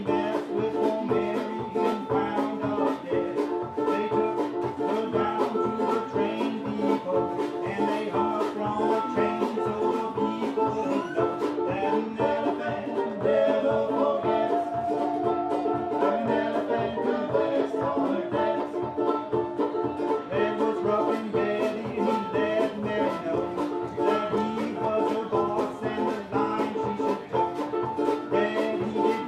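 Instrumental break of a small acoustic string band: banjo picking over a steady strummed rhythm, with a bowed musical saw holding long notes and sliding through a held note in the middle.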